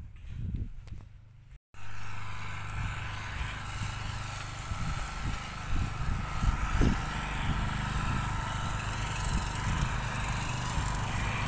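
Footsteps on the track, then after an abrupt cut a small engine running steadily with a constant hiss, from machinery at a track worksite.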